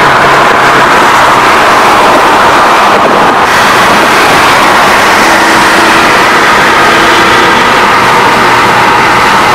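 Steady drone of cars at highway speed, engine and exhaust noise mixed with road and wind noise, heard from inside a moving car.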